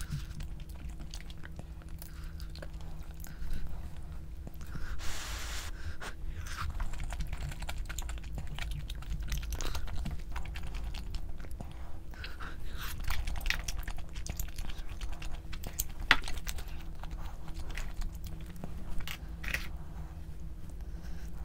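A person chewing and biting food close to the microphone: many small wet clicks and a few crunches, over a faint steady hum.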